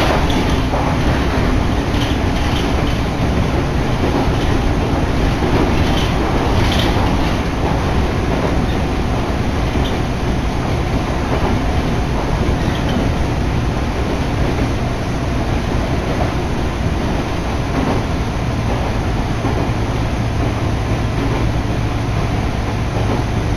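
Passenger train running, heard from inside the carriage: a steady rumble of wheels on rails, with a few sharp rail-joint clicks in the first seven seconds or so. A low steady hum joins in near the end.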